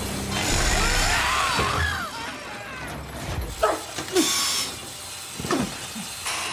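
Metal bucket-trap mechanism grinding and scraping, with ratcheting and several short, sharp screeching squeals of metal.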